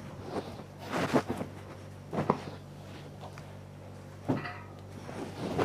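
A pillow being shaken out by hand, its fabric flapping and snapping in the air in several sharp strokes, over a steady low hum.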